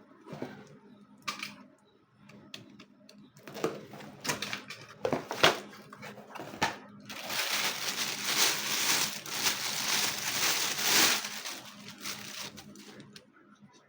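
Unboxing handling noise: scattered knocks and clicks, then about five seconds of packaging crinkling and rustling.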